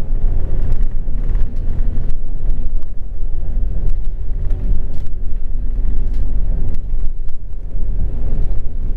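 Scania OmniLink articulated city bus driving, heard from inside the passenger cabin: a steady, loud low rumble of engine and road noise with faint engine tones above it and scattered light clicks.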